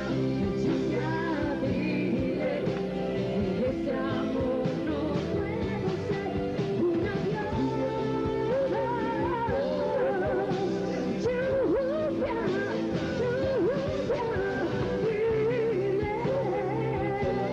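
A rock band playing a song live, with a bending, wavering lead melody line over a steady full accompaniment.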